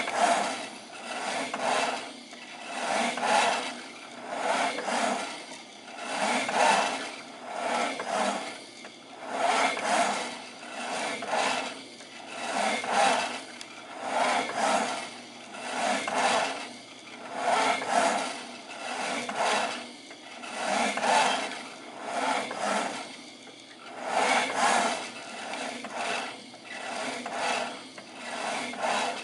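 HP 7044A X-Y recorder plotting continuously, its servo-driven pen arm and carriage sweeping back and forth with a rasping whir that swells and fades about every second and a half as the pen traces each loop.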